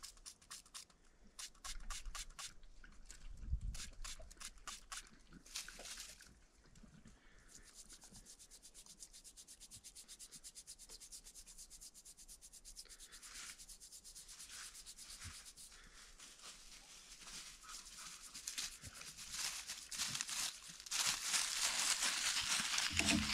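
Small bronze belt mount being scrubbed clean by hand. It gives a dry, scratchy rubbing, first in a few uneven strokes, then a fast, even run of short strokes that grows louder near the end.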